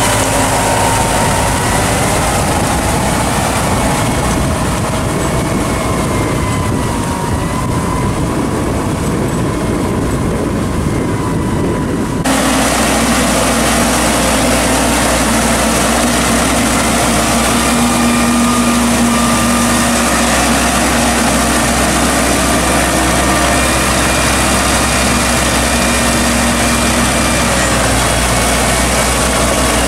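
Iseki TA-C55 crawler tractor's diesel engine running steadily while it tills a flooded rice paddy with its rear rotary tiller. The sound changes abruptly about twelve seconds in, then runs on steadily.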